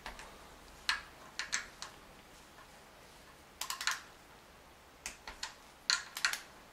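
Light metallic clicks of a hand tool on the 10 mm nuts of a BMW M52 VANOS camshaft sprocket as they are tightened down onto the spring washer, coming as scattered single clicks and a few quick runs of three or four.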